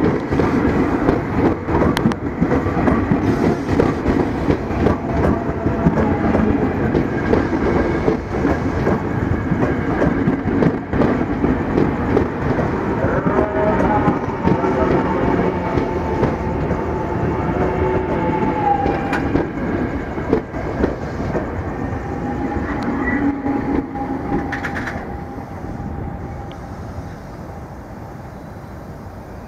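KRL electric commuter train running past close by, a steady dense rail rumble with faint higher tones over it, dying away over the last few seconds as the train clears.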